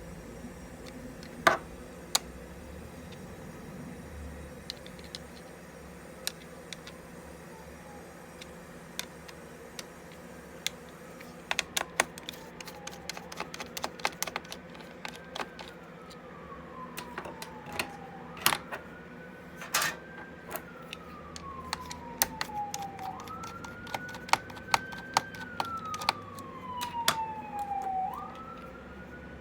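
Scattered plastic and metal clicks and taps from working on a laptop's case, screws and drive. From about halfway through, a siren in the background jumps up and then falls slowly in pitch, four times over.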